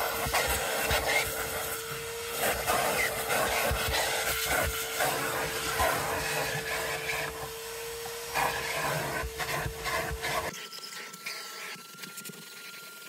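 Vacuum running with a steady whine as its crevice tool scrapes and rubs over car floor carpet, with small clicks and rattles. About ten seconds in the sound changes abruptly to a quieter, higher-pitched whine.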